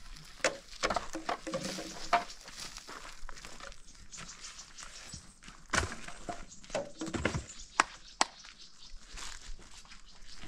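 Irregular knocks and clatters, several of them sharp.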